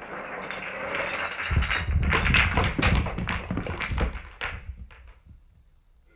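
Toy blocks pouring out of a bucket onto a person's head and clattering down, slowed down in slow motion. A rushing rattle comes first; about a second and a half in, many sharp clacks and thuds begin, then thin out after about four and a half seconds.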